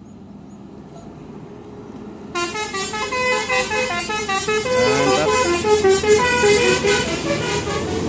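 Tour bus's musical air horn ('telolet') playing a fast melody of quickly changing notes, starting about two seconds in and getting louder as the bus comes closer, over the low rumble of its engine.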